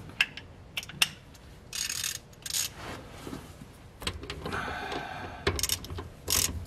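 A few light metal clinks as the slotted socket goes on the nut, then near the end a run of quick clicks from a hand ratchet, running the new pinion nut down lightly on the differential's pinion flange.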